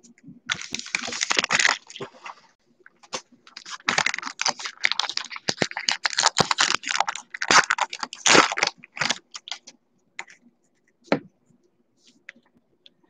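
Wrappers of 2020 Topps Gypsy Queen baseball card packs crinkling and tearing as the packs are opened by hand, in two long stretches, followed by a few light clicks as cards are handled near the end.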